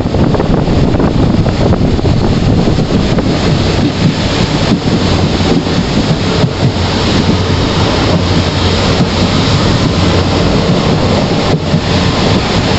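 Wind rushing and buffeting over the microphone at the open door of a moving ICF passenger coach, over the steady rumble of the train on the track, with a few sharp knocks along the way.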